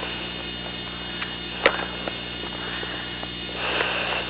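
Steady electrical hum and buzz in the recording, with a few faint clicks.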